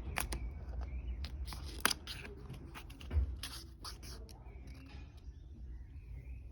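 Pages and card flaps of a lift-the-flap book being handled: scattered paper rustles and light clicks, with a sharper click near two seconds in and a dull knock about three seconds in.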